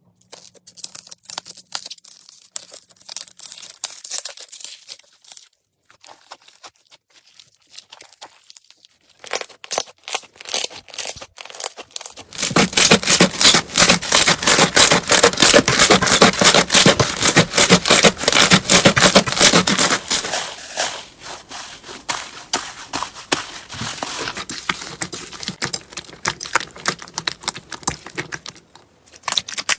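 Slime being squeezed and pressed by hand, giving a dense run of small crackling clicks and pops. It is quiet at first, gets much louder about twelve seconds in, and eases off after about twenty seconds.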